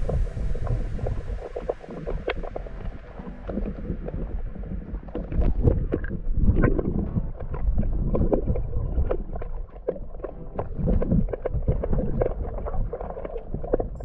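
Muffled sound of a camera held underwater while swimming in the sea: a low sloshing rumble of water moving past it, dotted with many small clicks and knocks. The higher hiss fades out over the first few seconds and the rest stays dull.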